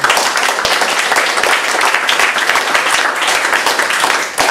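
Audience applauding, a dense patter of many people clapping that starts suddenly and keeps up steadily.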